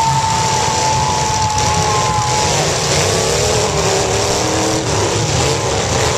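Several demolition derby cars' engines running and revving together, a loud continuous din of engines rising and falling in pitch, with a steady high whine held through the first couple of seconds.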